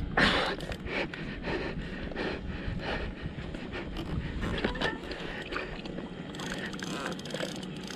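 Handling noise of fighting a big fish from a plastic kayak: irregular knocks and rubbing of the rod and reel against the hull, water slapping the hull, and the angler breathing hard. The loudest knock comes right at the start.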